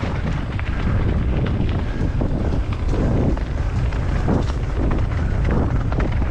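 Wind buffeting the microphone as a steady low rumble, with many irregular clattering knocks over it.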